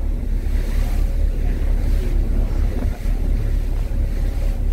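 Wind buffeting the microphone over a steady low rumble, with a faint steady engine hum beneath, as on the open deck of a moving ferry.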